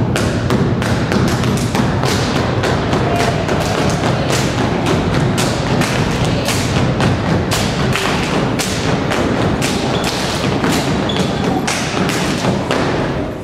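A step team stomping and clapping in unison, a fast, dense run of thuds and slaps. It starts abruptly and cuts off at the end of the routine.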